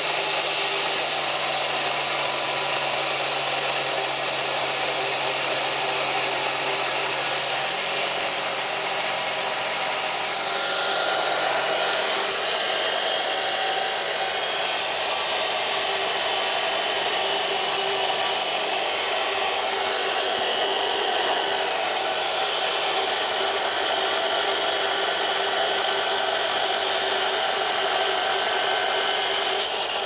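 Power saw's motor running continuously as it cuts through steel rebar, with a steady high whine. The whine shifts and the level eases slightly about eleven seconds in, then holds.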